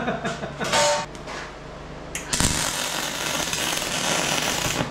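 A few metal clanks, one ringing briefly. Then, about two seconds in, a MIG welding arc strikes and crackles steadily on the steel of the power hammer's frame, stopping just before the end.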